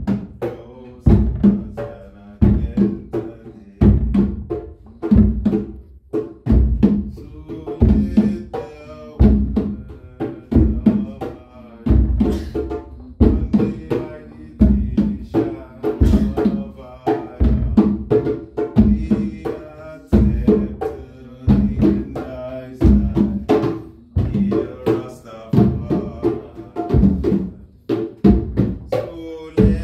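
Nyabinghi hand drumming, with a heavy bass-drum stroke about once a second under lighter drum strokes, and voices chanting along.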